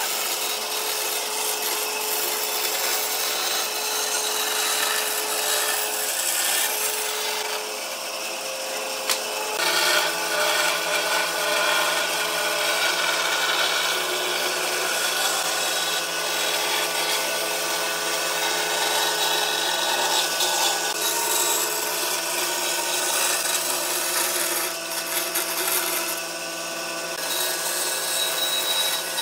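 Bandsaw running steadily and cutting a curve through a wide panel of glued-up wooden boards: a continuous motor hum under the hiss of the blade in the wood. A lower steady hum joins about ten seconds in.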